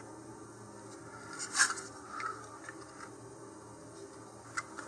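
Short scrapes and light taps of a plywood centering ring being slid along a model rocket's motor mount tube and a wooden fin being set against it, over faint steady room tone. The loudest scrape comes about a second and a half in, with a few smaller ones after.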